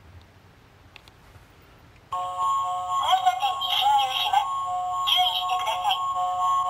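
Toy police car's electronic sound unit switching on suddenly about two seconds in: a tinny, steady chord of electronic tones, with a wavering, voice-like electronic sound over it twice. A couple of faint clicks come before it.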